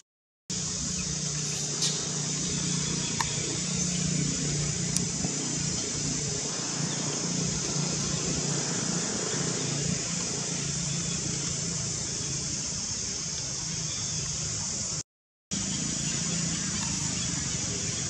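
Steady outdoor background noise: a high hiss over a low hum, with no distinct calls. It cuts out to silence twice for about half a second, once at the very start and once near the end.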